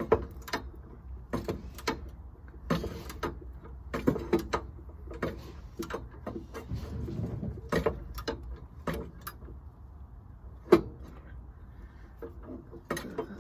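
Ratchet wrench worked back and forth to back off a freshly loosened exhaust manifold fastener, its pawl clicking in short irregular bursts with light metal tool clinks. One sharper metal knock comes about two-thirds of the way through.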